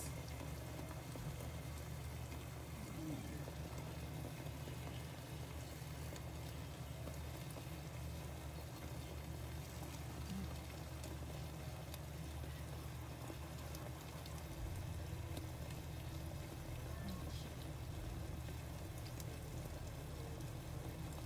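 Chicken, sauce and broccoli simmering in a covered pan under a glass lid: a steady soft bubbling, over a constant low hum.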